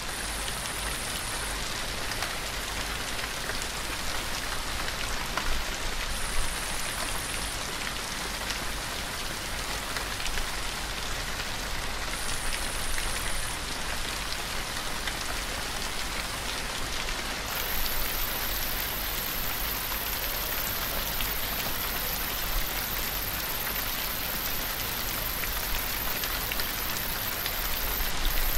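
Steady rain sound, an even wash with no pauses. A thin, high-pitched layer joins it a little past halfway and carries on.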